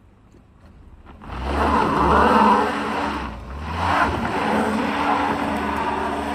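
A car engine revving hard under load with the tyres spinning and scrabbling for grip on a steep dirt climb; it starts about a second in, eases off briefly in the middle, then picks up again. The wheelspin marks the car struggling for traction on the slope.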